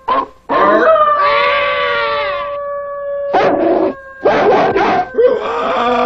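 A pack of wolves howling and yelping, several voices overlapping: short yelps, one long howl, a few more bursts, then a long chorus of howls near the end. A steady held note sounds underneath until about two-thirds of the way through.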